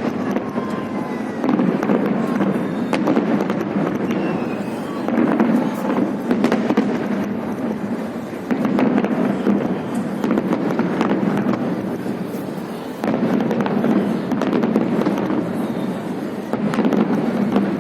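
Fireworks display: dense, continuous crackling and popping bursts with a few faint whistles, over a steady murmur of crowd voices.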